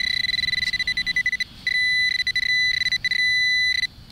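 Garrett Pro-Pointer pinpointer sounding its steady, high-pitched alert tone while held in the dug hole, the sign that it is on a metal target. The tone cuts out briefly about a second and a half in, flickers in and out for a moment, and drops out again near the end as the probe moves off and back onto the target.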